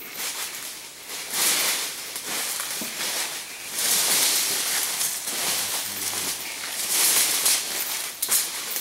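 Dry leaves and brush rustling and crackling, in three surges a couple of seconds apart, as an elephant pushes through forest leaf litter.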